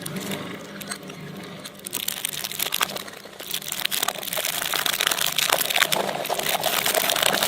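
Electric shredder running with a steady low hum, then dense crackling and crunching as material goes through it, getting louder about halfway through.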